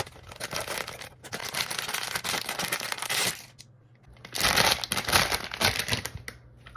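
Crinkly wrapper of a Pop Mart blind box being torn open and handled. There are two spells of dense crinkling, one from about a second in to past three seconds and another from about four and a half to six seconds, with scattered clicks before them.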